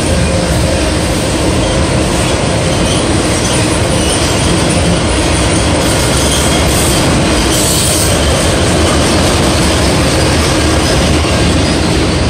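Freight cars rolling past at close range, first flatcars loaded with railcar truck frames and then autoracks: a steady, loud noise of steel wheels running on the rails.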